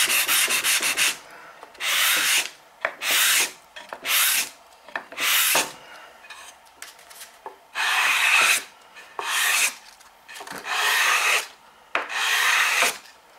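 Wooden bridle joint being hand-sanded with a small sanding block: a quick run of short scratchy strokes at first, then single longer strokes about a second apart.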